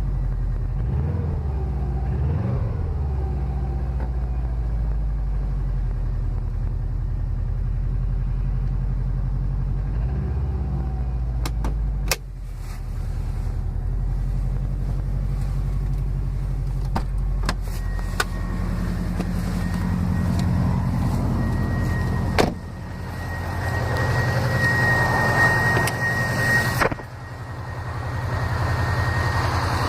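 Saab 9-2X Aero's turbocharged 2.0-litre flat-four idling steadily after a cold start; the owner suspects piston slap. Several sharp clicks come in past the middle, and a thin steady high whine joins them.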